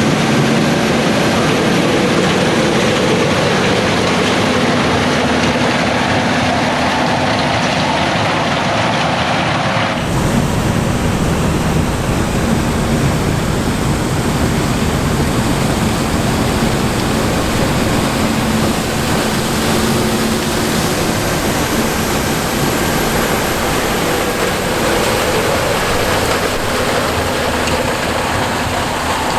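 Fendt Ideal 8 combine harvester running steadily while harvesting corn, a loud, constant machine drone. The sound changes abruptly about ten seconds in, becoming fuller and deeper.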